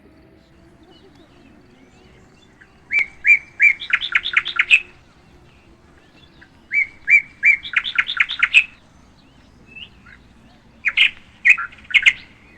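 A songbird singing three phrases, each opening with a few evenly spaced notes and running into a quick trill-like series, with short pauses between.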